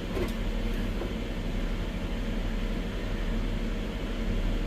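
Steady whirring hum of a kitchen appliance's fan, with an even hiss over a low drone and no change throughout.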